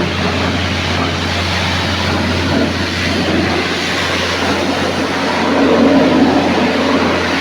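An electric machine running, with a steady mains hum under a loud, continuous rushing hiss; the hum stops near the end.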